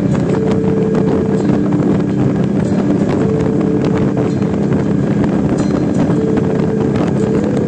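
Suzuki Intruder VL800's 805 cc V-twin running steadily at highway cruising speed, with wind rushing over the microphone. A slow melody of music plays along with it.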